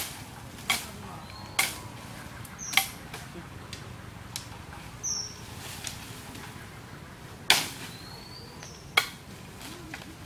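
A hand tool chopping at bamboo stems: about half a dozen sharp, irregularly spaced strikes with a lull in the middle, while small birds give short high chirps in between.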